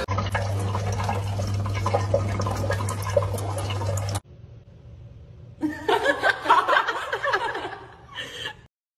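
A tap runs in a steady stream onto a cat sitting beneath it, with a low hum under the splashing, for about four seconds before cutting off abruptly. After a quieter stretch, dogs play-fighting give a loud run of short, pitch-bending yelps and barks that fades out near the end.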